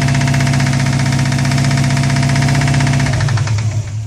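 Subaru WRX's flat-four engine running with a rapid, steady knock, which the owner takes for rod knock in the just-installed used motor. About three seconds in the sound changes and begins to wind down.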